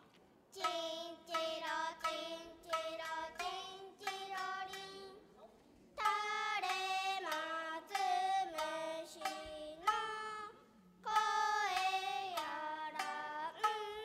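Young girls' voices singing nagauta with long held notes that step and bend in pitch, in three phrases with short breaks, over plucked shamisen accompaniment.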